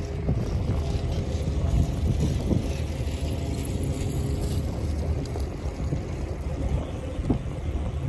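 Wind buffeting the microphone with a steady low rumble of riding along on a bicycle.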